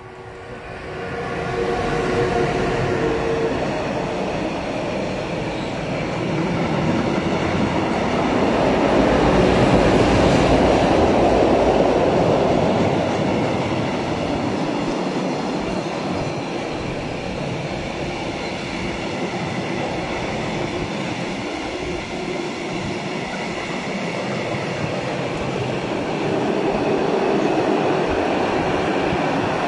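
Siemens Vectron electric locomotive passing close with a steady whine at the start, followed by a long train of loaded double-deck car-transport wagons rolling past, a continuous loud rumble of steel wheels on rail that is loudest a few seconds after the locomotive has gone by.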